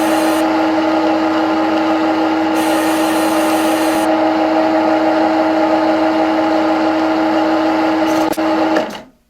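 CNC lathe running with a steady whine over a hiss of machining noise, stopping abruptly near the end.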